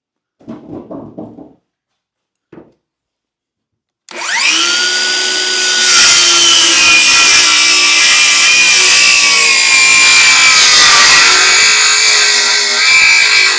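Electric power saw spinning up about four seconds in, its whine rising, then running steadily as it cuts wood, the pitch dipping slightly under load near the end.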